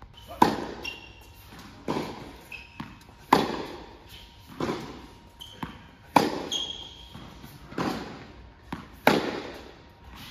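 Tennis balls struck by rackets in a steady rally, one hit about every second and a half, each echoing through a large indoor hall. Short shoe squeaks on the court come between the shots.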